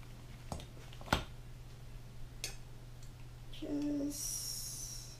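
Kitchen utensils and containers handled on a table during sandwich assembly: a few sharp clicks and taps spaced about a second apart, the loudest about a second in, over a steady low hum. About a second of high-pitched hiss follows near the end.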